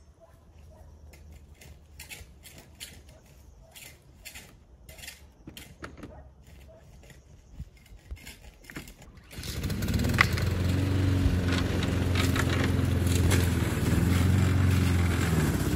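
Walk-behind lawn mower's engine running steadily, coming in loud about nine seconds in. Before that there are only faint scattered clicks.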